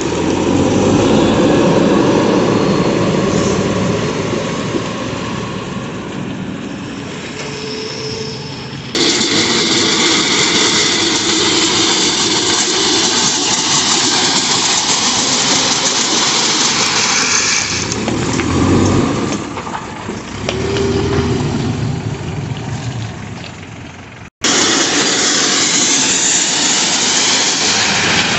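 JCB backhoe loader's diesel engine running under load as its front bucket pushes and scrapes crushed stone along the road surface. The sound jumps abruptly about nine seconds in and cuts out for a moment near the end, where shots change.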